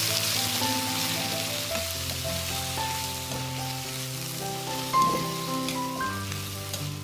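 Sour bamboo shoots sizzling in hot oil in a metal wok while a metal ladle stirs them, with a brief scrape of the ladle against the pan about five seconds in. Background music with held notes plays underneath.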